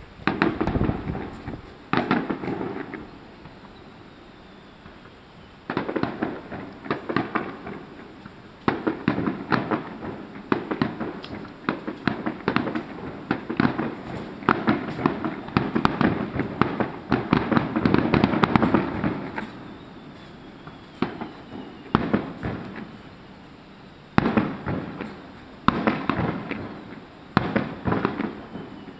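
Fireworks crackling in rapid clusters of sharp pops. They come in bursts of a second or two, with one long unbroken stretch of about ten seconds starting around nine seconds in.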